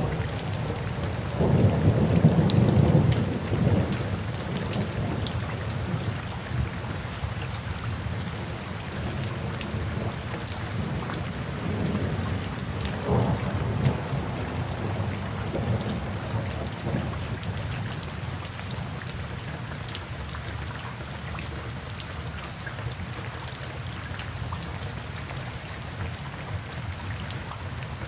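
Steady rain with thunder: a loud low rumble of thunder about two seconds in and softer rolls around the middle, then even rain alone.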